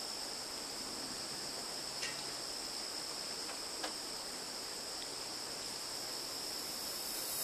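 Insects singing in a steady, unbroken high-pitched drone over faint background noise, with a couple of faint ticks.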